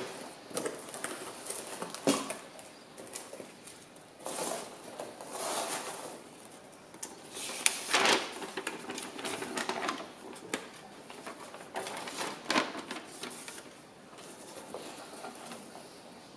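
Hands unpacking a cardboard box: flaps scraping and rustling, paper sheets crinkling, and foam packing peanuts shifting, in irregular bursts. It settles to quieter handling near the end.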